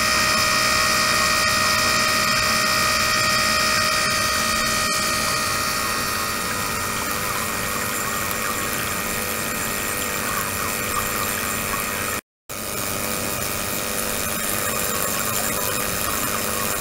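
Ultrasonic tank system (72 kHz, 300 W) with a resin container running in water: a steady hiss with several high whistling tones over the first few seconds, thinning to a steady noisy hiss. There is a brief silent break about twelve seconds in.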